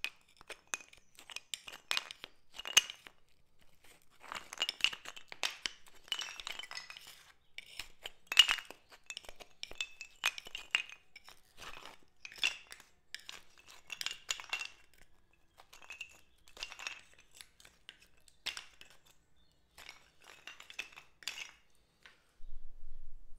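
A small metal pry lever chipping and levering old parquet wood blocks up from bitumen adhesive on a concrete floor: irregular clusters of sharp metallic clinks and taps. They stop about a second before the end.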